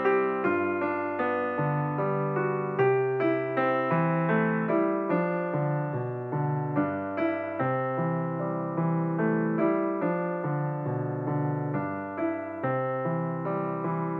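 Background piano music: a steady, calm run of struck notes that each fade, about two a second, over low bass notes that change every second or two.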